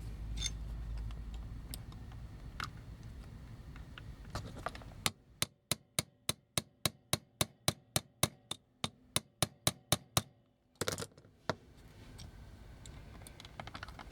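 A small hammer tapping a punch against a metal rivet in a toy, in a quick even run of about twenty light metallic taps, some four a second, starting about five seconds in. Two louder knocks follow a little later.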